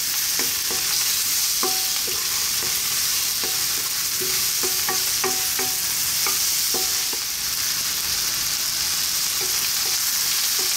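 King oyster mushrooms, onion, garlic and ginger sizzling steadily in hot oil in a non-stick wok over high heat, stirred with a wooden spoon that scrapes and taps against the pan in irregular clicks.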